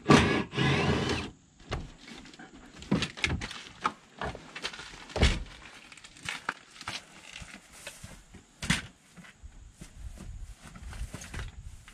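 A car's loose front seat being pulled out through the door opening and handled: a loud scrape and rustle at first, then scattered knocks and thunks as it is moved about.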